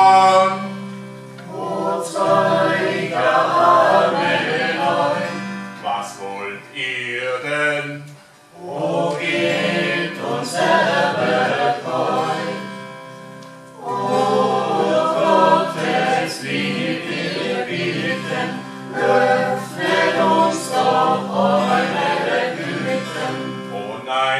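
A small group of voices singing together, accompanied by acoustic guitars, with short breaks between lines about eight and fourteen seconds in.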